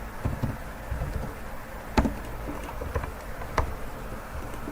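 Two sharp clicks of a computer mouse, about two seconds in and again near three and a half seconds, with a few softer low thumps over a steady background hiss.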